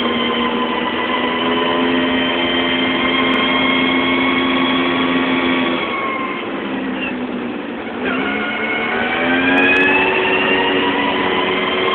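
ATV engine running at a steady speed, easing off with falling pitch about six seconds in, then revving back up from about eight seconds.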